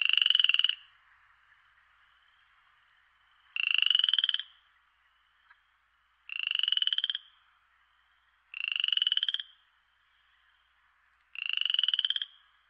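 A frog calling: five pulsed, trilling calls of about a second each, repeated every few seconds, with a faint steady background between them.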